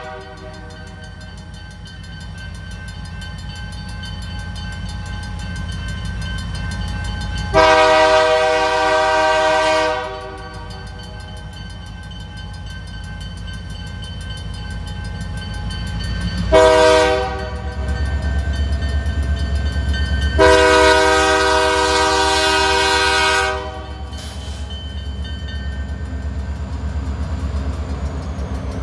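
Chime horn of an EMD SD40-2 freight locomotive sounding the grade-crossing signal: the tail of a long blast, then a long blast, a short one and a final long one. Under the horn the locomotive's diesel rumble grows louder, and it is loudest in the second half as the engine passes close by.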